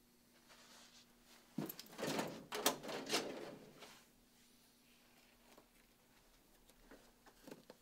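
A metal filing-cabinet drawer being pulled open: about two seconds of sliding noise with a few sharp clicks, starting a little over a second and a half in. Faint small clicks follow near the end.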